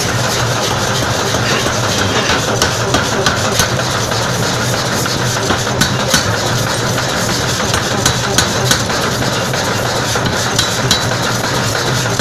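Forging power hammer running steadily with a low mechanical hum, while a red-hot workpiece sits on its die. Short light knocks come over the hum in small groups of three or four, about three a second.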